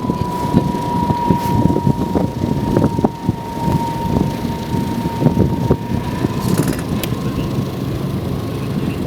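Hovercraft running: a loud, continuous engine and fan rumble with irregular knocks, and a steady high whine that drifts slightly in pitch.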